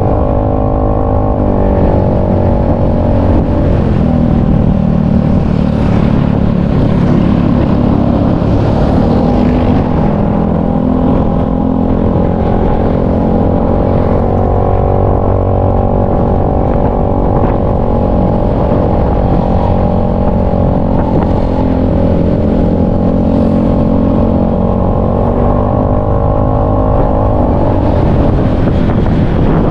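Motor scooter engine running steadily while riding along a road, its pitch rising and falling a little with the throttle.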